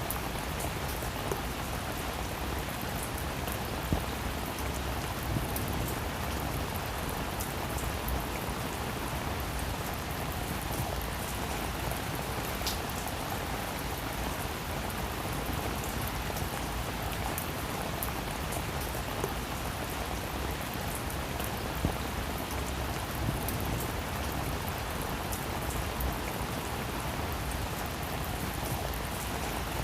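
Steady rain falling on a roof: an even hiss with scattered louder drops ticking.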